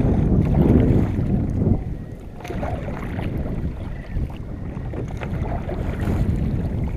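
Wind buffeting the microphone over water lapping against a fishing kayak's hull. The wind eases about two seconds in.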